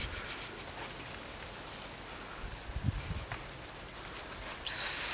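A cricket chirping steadily in short high pulses, several a second, over faint open-air background noise, with a brief rustle near the end.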